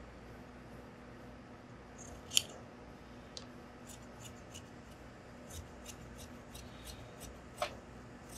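Large tailor's shears cutting trouser cloth along a chalk line: a run of faint snips, about three a second, with one sharper click a little over two seconds in.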